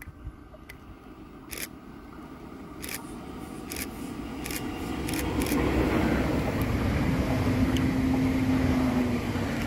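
A train approaching and growing steadily louder, with a series of sharp clicks in the first half and a steady hum coming in over the rumble in the last few seconds.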